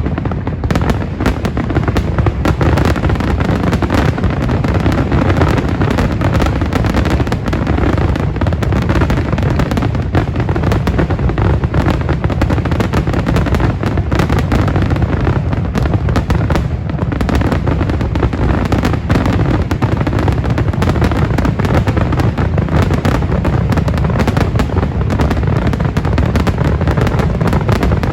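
Fireworks going off in a dense, continuous barrage of bangs and crackles, with no pause.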